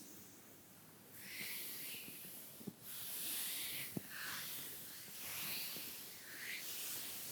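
Soft makeup brushes sweeping lightly over bare skin, a hushed swish about every second and a half, with two faint clicks in between.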